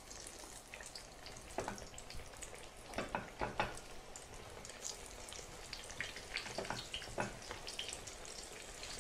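Floured aubergine slices frying in hot olive oil in a pan: a low, steady sizzle with scattered sharp crackles that bunch into louder spells several times.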